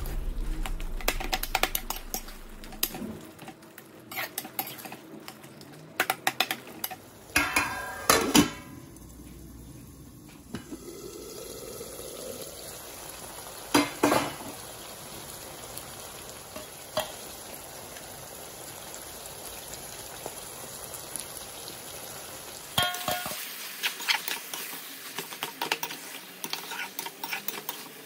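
Slotted metal spatula scraping and knocking against a metal kadai as snake gourd sabzi is stirred and sautéed, with the vegetables sizzling. For a long stretch in the middle the stirring stops and only a steady sizzle is heard, broken by a few single knocks, then the scraping starts again near the end.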